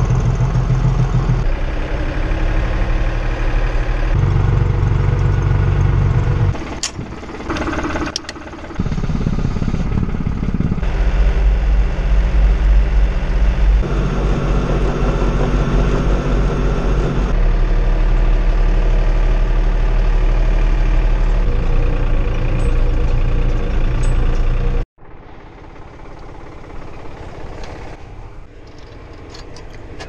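Farm tractor engine running as the tractor drives, its note rising and falling several times. Near the end the sound drops suddenly to a quieter steady running.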